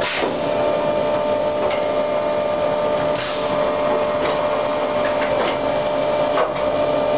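Drilling spindle of a Behringer-Vernet HBP 530/1104G portal drilling machine boring into a rectangular steel tube: a steady mechanical whine made of several constant tones, with a few sharp clicks.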